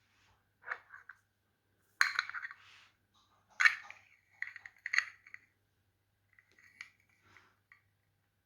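Clicks, scrapes and light clinks of a small USB-C to VGA adapter's casing and parts being handled and pried open, in several short bursts; the loudest come about two seconds in and again near four and five seconds.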